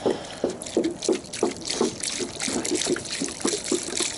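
Milk glugging out of an upturned plastic milk jug in regular gulps, about three a second, splashing onto the ground.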